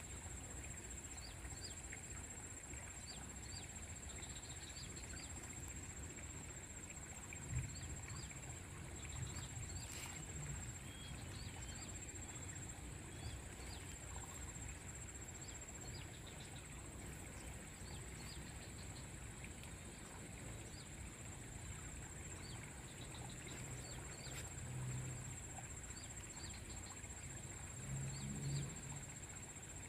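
Rural outdoor ambience: a steady high-pitched insect drone, with short chirps repeating about once a second. A few soft low bumps come in at intervals.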